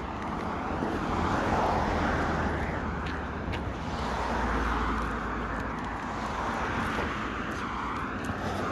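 Cars passing on a nearby road, their tyre and engine noise swelling and fading several times as one vehicle after another goes by.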